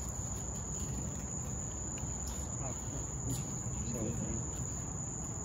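Night insect chorus, a continuous high-pitched trill held on one pitch, over a low rumble.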